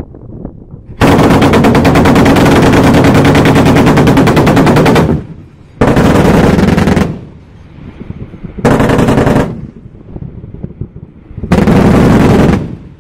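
Gepard anti-aircraft tank's twin 35 mm Oerlikon autocannons firing in four bursts of rapid automatic fire: a long burst of about four seconds, then three shorter bursts of about a second each.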